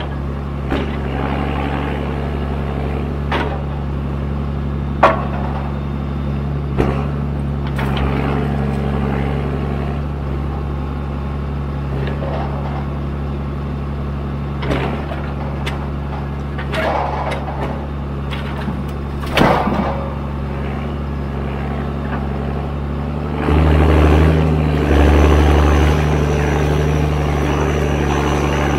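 John Deere 1410D forwarder's 6.8-litre diesel engine running steadily, with sharp knocks and clunks now and then. About 23 seconds in the engine revs up and runs louder.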